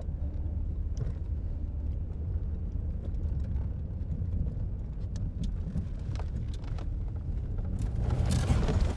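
Steady low rumble of a car's engine and road noise heard from inside the cabin, with faint scattered ticks. A hiss builds up and grows louder near the end.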